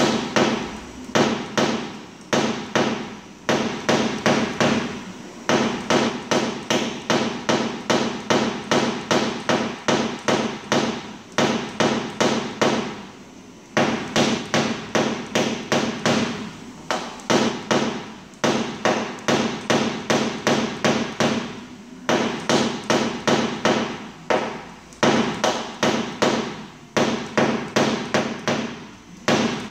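Small hammer tapping a knockdown punch held against a car door's sheet metal during paintless dent repair. The taps are quick and even, about three a second, in runs of several seconds broken by short pauses.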